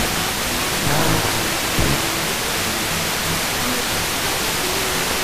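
Heavy FM radio static from a weak, long-distance sporadic-E signal on 95.8 MHz, received on a software-defined radio. Faint music from the station is barely audible under the hiss.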